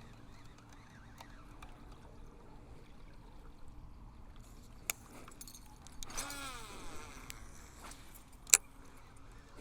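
Fishing tackle handled in a boat while casting: a few sharp metallic clicks and knocks, the loudest near the end, and a short falling tone with several pitches about six seconds in.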